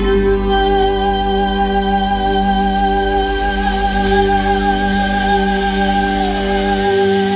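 Live worship band music: one long held chord over a low bass note, which cuts off near the end.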